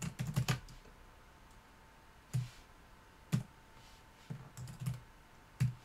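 Computer keyboard being typed on in short, uneven runs of key clicks with pauses between them. There is a quick burst of keystrokes at the start, then single clicks and a short run spread out over the rest.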